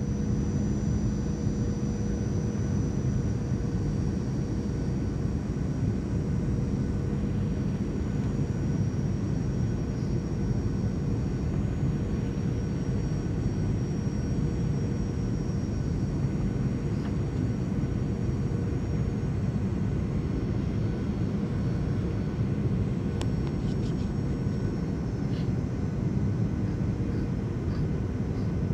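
Cabin noise of a Boeing 737-700 on final approach: the steady roar of airflow and its CFM56-7 turbofan engines, with a low hum and a faint high whine running through it. A few faint ticks near the end.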